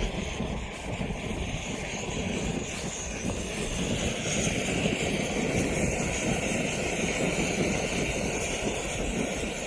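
Backpacking stove burning steadily just after lighting, a constant rushing flame; there is too much fuel in it, in the camper's own view.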